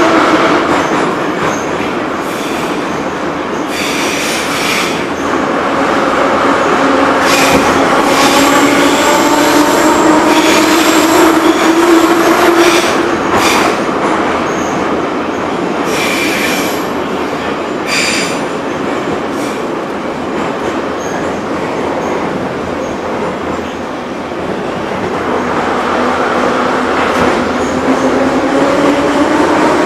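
Inside a Soviet-built 81-717/714 metro car running through a tunnel: steady wheel and track rumble with the traction drive's whine, which falls in pitch and then rises again over the last few seconds as the train picks up speed. Several short wheel screeches come through the middle stretch.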